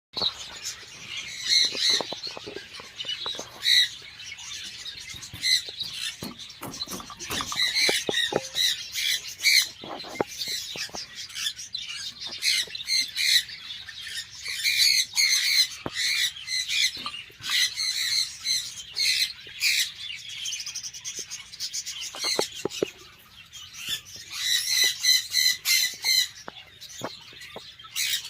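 A group of birds calling: many short calls overlapping and repeating, with a quieter lull of a few seconds about three-quarters of the way through.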